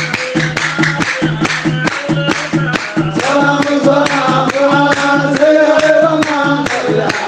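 Devotional qasida singing: voices chanting in praise over a steady, even beat. The voices hold long notes and grow louder from about three seconds in.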